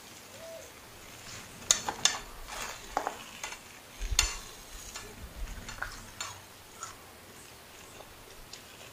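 Metal spoon scraping and clinking against a cast-iron serving plate as food is scooped up: a handful of sharp clicks and scrapes, the loudest about two and four seconds in.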